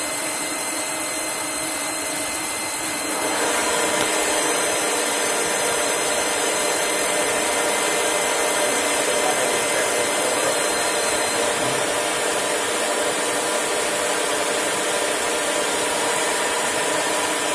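CNC lathe running and machining a metal velocity stack: a steady mechanical hum with the hiss of cutting. It gets louder about three seconds in.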